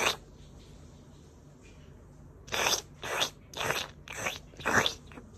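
A cat sneezing: one sneeze at the start, then a fit of five quick sneezes about half a second apart.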